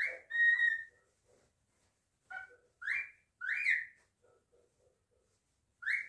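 Cockatiel whistling short phrases of clear, gliding notes. About three seconds in it gives a two-note wolf whistle, rising then rising and falling, and it starts another just before the end.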